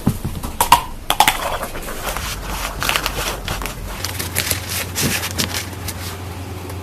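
Rustling and clattering with a run of sharp knocks, thickest in the first second and a half, and a low steady hum starting about four seconds in.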